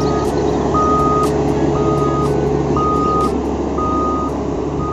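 Single-drum road roller's engine running steadily under its reversing alarm, which beeps about once a second: the sign that the machine is in reverse.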